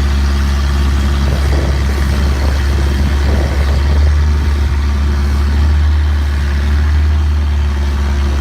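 Tour boat's engine running steadily while under way, a loud, even low drone that does not change.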